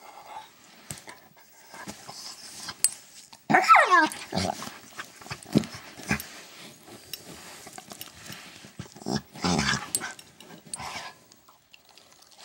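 Dog vocalising: one high whining cry that falls steeply in pitch about three and a half seconds in, among short rough dog sounds and rustling, the strongest near the end.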